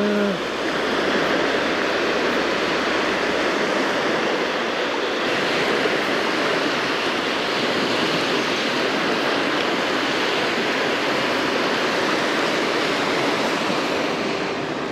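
Small waves washing onto a sandy beach: a steady hiss of surf.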